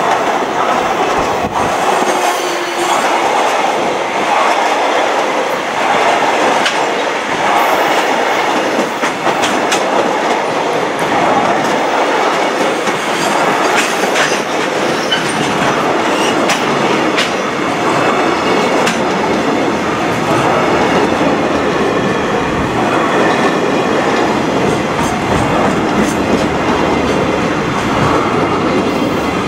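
Container flatcars of a JR Freight train rolling past close by: a loud, steady rumble of wheels on rail, with repeated clickety-clack knocks as the wheels cross rail joints.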